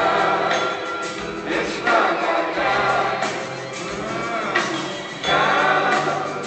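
Live rock band playing with lead and backing vocals: drums, percussion, guitar and keyboard under sung lines, over low bass notes that hold and change.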